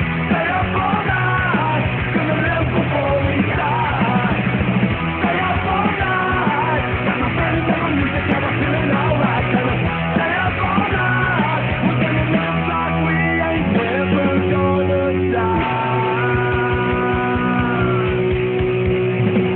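Punk rock band playing loudly: electric guitars, bass and drums with shouted singing, then long held notes near the end.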